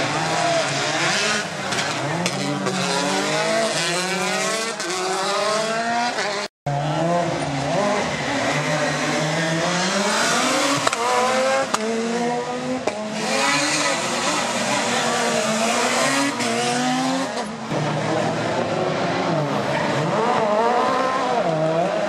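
Rally cars at full effort, engines revving hard and falling away through repeated gear changes and lifts, with tyre squeal. The sound breaks off sharply for a moment about six seconds in.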